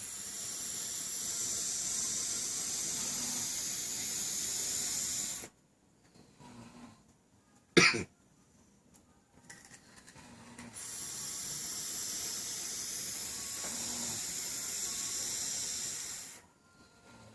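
Single-coil Nimbus clone vape atomizer hissing and sizzling through two long draws of about five seconds each, the coil firing with air drawn through it. Between the draws there is one brief, loud, sharp knock.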